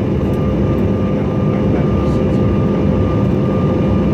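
Steady cabin noise inside a CRJ-900 regional jet in flight: an even rush of air with the steady hum of its two rear-mounted General Electric CF34 turbofans, holding a few constant tones.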